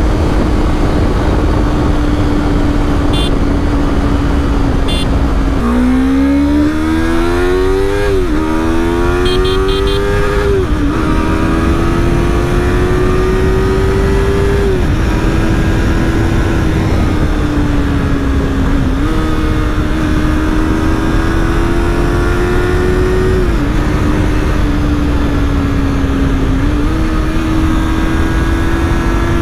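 Yamaha YZF-R3's 321 cc parallel-twin engine and exhaust holding a steady note, then accelerating through the gears from about six seconds in. The pitch climbs in each gear and drops sharply at each of about six upshifts, with the climbs getting slower in the higher gears.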